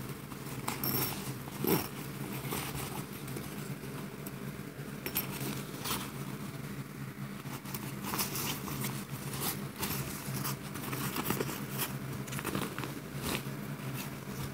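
Thin nylon backpack fabric rustling and crinkling in irregular bursts as the bag is handled and turned over, with its metal zippers and pulls being worked. A steady low hum runs underneath.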